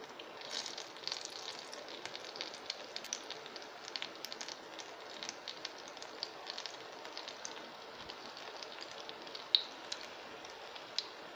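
Corn pakora batter deep-frying in hot oil in a wok: a steady sizzle with dense crackling pops, and a couple of sharper pops near the end.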